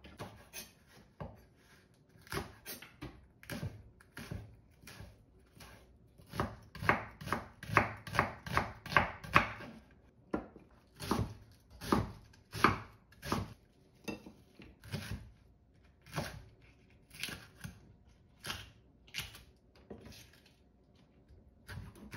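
Kitchen knife slicing vegetables on a wooden cutting board: a series of separate cuts about once or twice a second, with a quicker, louder run of about three cuts a second about a third of the way in.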